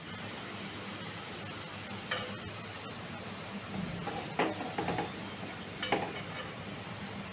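Sultanas sizzling in hot coconut oil in a metal kadai, a steady frying hiss, with a few light clinks and knocks as they are spooned out into a glass bowl.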